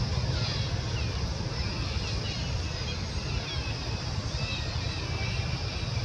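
Outdoor ambience: a steady low rumble of wind on the microphone, with many short, faint high chirps scattered throughout.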